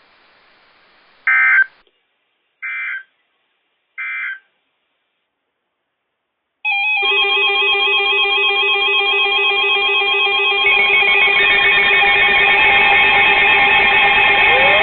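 NOAA Weather Radio EAS end-of-message tones: three short bursts of digital data squawk about 1.3 s apart over faint radio hiss, signalling the end of the warning broadcast. About six and a half seconds in, loud music with held tones starts and keeps going.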